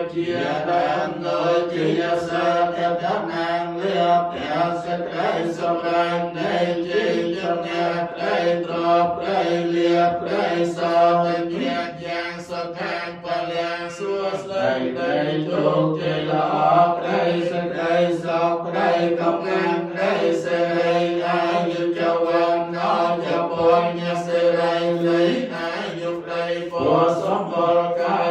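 Buddhist monks chanting together in a steady, low drone held on a few notes, with an even syllable rhythm.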